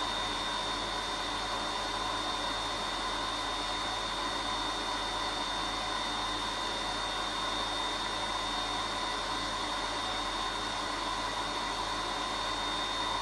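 Vacuum cleaner running steadily, a high whine over an even rushing noise.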